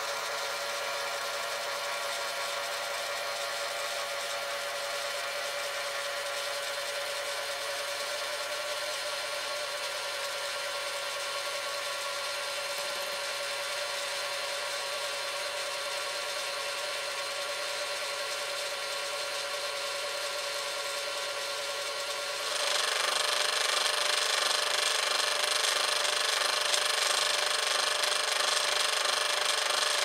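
Recycled refrigerator compressor running as a vacuum pump, a steady mechanical hum with a few fixed tones. About 22 seconds in it becomes louder and harsher, with an even pulsing.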